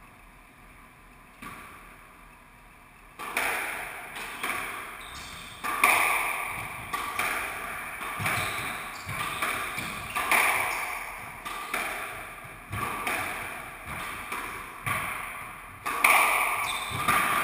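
Squash rally: the ball cracking off rackets and the walls in quick succession, each hit echoing round the enclosed court. The hits start about three seconds in after a short lull and come roughly once or twice a second.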